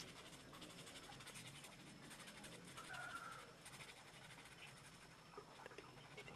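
Faint scratching of a felt-tip marker stroking over a tissue-covered foam squishy, in near silence.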